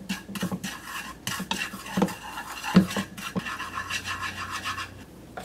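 Chopsticks stirring and scraping granulated sugar in hot oil in a nonstick pan, a rasping scrape with one sharper knock against the pan a little under three seconds in. The sugar is melting down to make caramel sauce, and in the second half it bubbles with a light sizzle.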